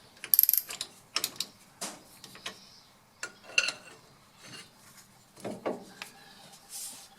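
Metal tool work on the pinion nut of a GM 10-bolt 7.5-inch rear axle: separate metal clicks and clanks with pauses between, the loudest a cluster about half a second in. The nut is being taken up a little at a time to remove pinion bearing play without over-crushing the crush sleeve.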